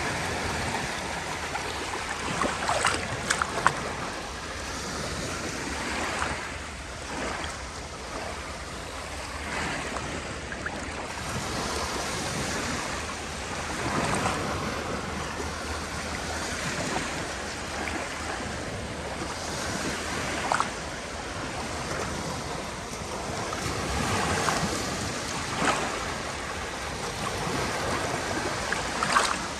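Sea waves breaking and washing on the shore, a continuous surf that swells and eases every few seconds with brief louder splashes.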